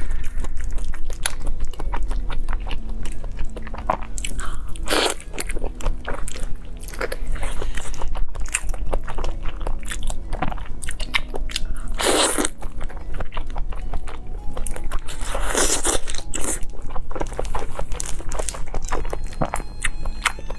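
Close-miked biting and chewing of crunchy fried food: a steady run of crisp crackles and smacks, with several louder crunching bites.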